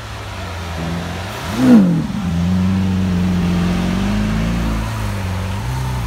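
Lamborghini Aventador's V12 engine idling, with one quick rev blip that rises and falls in pitch a little under two seconds in, then running steadily at idle.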